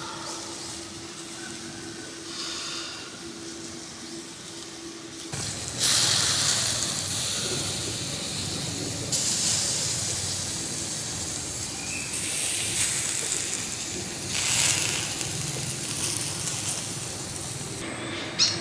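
Pig intestine on a bamboo skewer sizzling and hissing over hot charcoal, louder from about five seconds in, with a short sharp click near the end.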